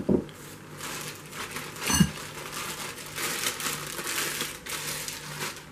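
Plastic wrapping crinkling and rustling as it is handled, with a short squeak about two seconds in.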